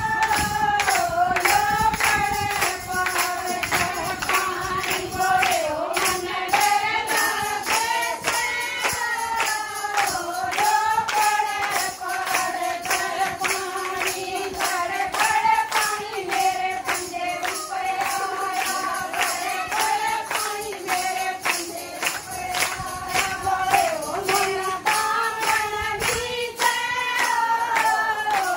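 Women singing a Haryanvi Shiv bhajan, a devotional song to Lord Shiva, to a quick steady percussion beat with hand-clapping.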